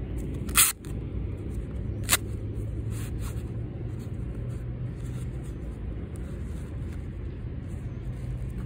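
A goalkeeper glove's hook-and-loop wrist strap ripped open: a loud, short tearing crackle about half a second in and a second sharp one about two seconds in, followed by softer rustling of the glove being handled. Under it runs a steady low rumble.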